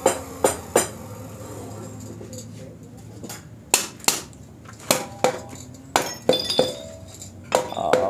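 Sharp metal knocks and clinks, about a dozen in irregular clusters, some ringing briefly: metal exhaust parts being tapped together as the muffler's filter tube is fitted into the silencer body.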